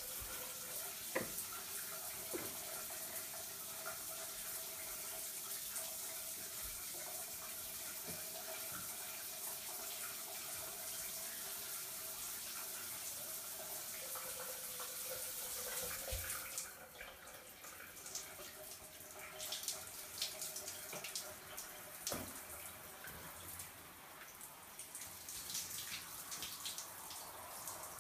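Shower water running in a tiled stall with a steady hiss, which stops suddenly a little past halfway. Scattered drips and small splashes follow.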